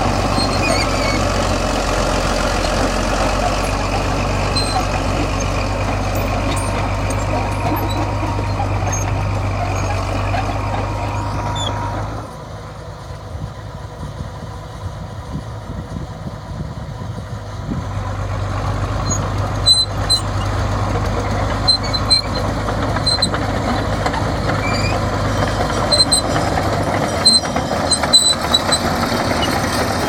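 Crawler bulldozer's diesel engine running steadily as the machine works soil, with short metallic clinks from its tracks. The engine drops away and sounds more distant for several seconds near the middle, then comes back up close.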